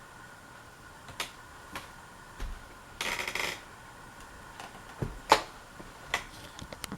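A faint steady hum, consistent with the ceiling fan running on its low speed. Over it come scattered light clicks and taps, and a brief rustle about three seconds in.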